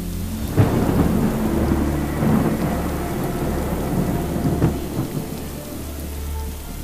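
Rain falling steadily, with a thunderclap breaking about half a second in and rumbling on, and further cracks a couple of times after.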